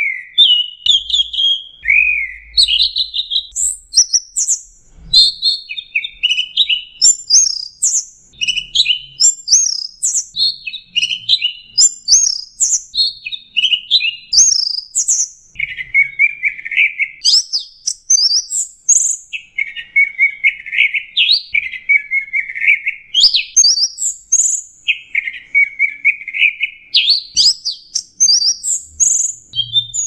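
Orange-headed thrush (anis merah) singing without pause, a long run of quick, varied phrases that jump between lower and very high notes, its song filled with imitations of other birds' calls.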